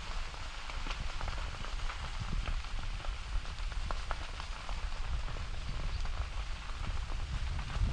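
Wind buffeting the microphone in a steady low rumble, with many small scattered crackles over it.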